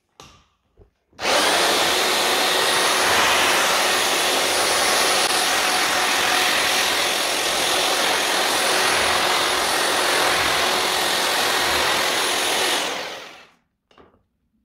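Electric hammer drill with a paddle mixer churning tile adhesive in a bucket, running at a steady speed. It starts abruptly about a second in and winds down to a stop near the end.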